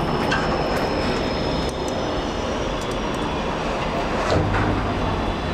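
Machine-room-less traction lift (AS Aufzüge) travelling between floors, heard from inside its glass car: a steady rumble and hiss of the ride with a low hum, swelling slightly about four seconds in.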